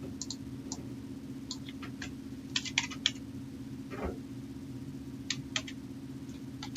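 Computer keyboard and mouse clicks: scattered short taps in small clusters over a steady low hum.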